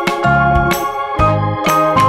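Electronic keyboard background music with organ-like chords, a moving bass line and a beat.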